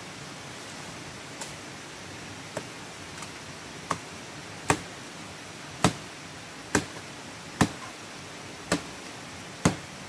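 A machete chopping into woody stems, about ten sharp strokes roughly a second apart, light at first and harder from about halfway in. A steady hiss runs underneath.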